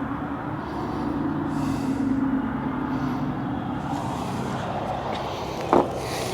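Power drill running steadily under load, drilling into steel, with one sharp click near the end.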